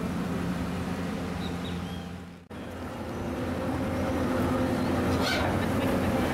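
Swollen, muddy floodwater rushing past with a steady low machine hum underneath and a few faint bird chirps. The sound drops out for a moment at an edit about two and a half seconds in.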